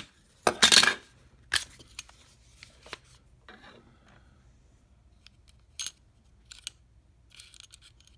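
Small metallic clicks and rattles of loose staples being handled and dropped into the magazine of an Arrow E21 cordless electric staple gun, with plastic parts clicking. The loudest rattle comes just under a second in, followed by a few scattered clicks.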